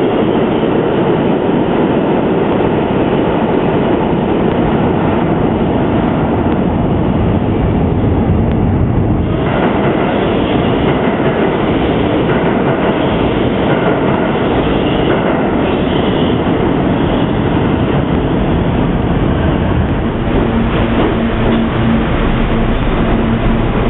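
New York City subway R160 cars running through underground stations, a loud steady rumble and rattle of steel wheels on rail. The sound changes abruptly about nine seconds in, and a steady low hum joins it near the end.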